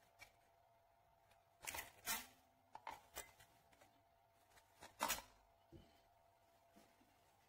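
Faint handling clicks and knocks of a cylindrical lithium-ion cell being shifted in a four-bay plastic charger and pulled out against its spring contacts, in a few scattered groups, the loudest about five seconds in.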